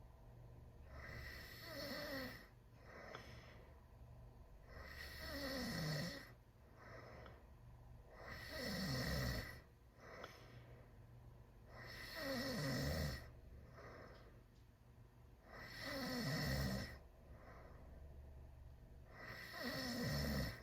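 A teenager snoring loudly with the mouth wide open. A rasping snore on each in-breath, about every four seconds, swells for about a second and drops in pitch before cutting off, with softer breathing in between.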